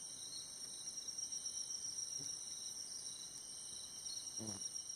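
Faint, steady insect chorus chirring in several continuous high-pitched bands, with a short low call about four and a half seconds in.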